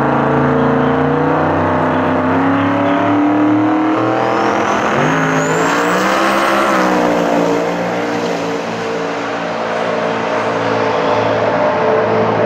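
Twin-turbo V8 of an Outlaw 10.5 drag-racing Ford Mustang held at rising revs on the start line, then launching at full throttle. It rises and falls in pitch as it passes, about halfway through, and carries on as a steady drone far down the strip.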